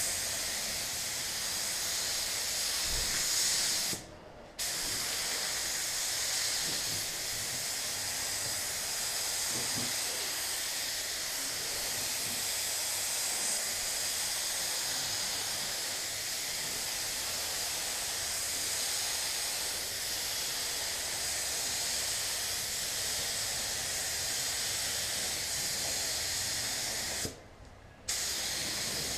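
Compressed-air gravity-feed spray gun hissing steadily as it lays a semi-wet coat of clear coat on a car body panel. The hiss stops briefly about four seconds in and again near the end, as the trigger is let off between passes.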